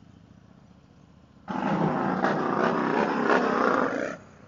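Harley-Davidson Road King's V-twin engine, faint at first, then loud from about a second and a half in as the bike pulls away, dropping back down shortly before the end.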